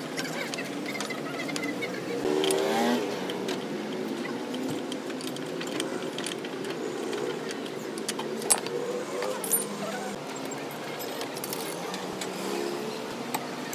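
Steel wheel-brace socket clinking against the lug nuts of an alloy wheel as they are tightened, with a couple of sharper metal clinks about two-thirds of the way through, over steady traffic noise.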